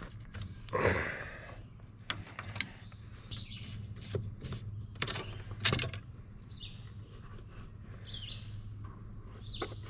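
Wrench and hydraulic line fitting on a Galion motor grader knocking and clicking a few times as the fitting is loosened and the hose pulled off. Birds chirp briefly four times in the background.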